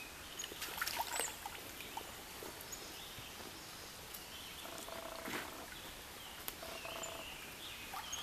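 Quiet woodland stream ambience with small birds chirping now and then. A few faint knocks come about a second in and again a little past five seconds.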